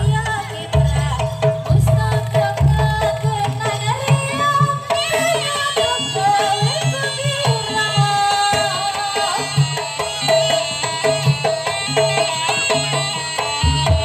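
Traditional Javanese barongan music: hand drums beating a driving rhythm under a wavering melody line.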